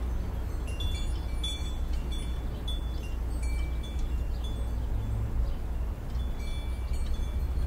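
Chimes tinkling: short, high ringing notes of different pitches sounding irregularly, over a steady low rumble.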